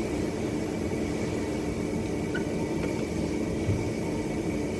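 TIG welding arc running steadily, a constant electrical hum and hiss, while steel hooks are welded.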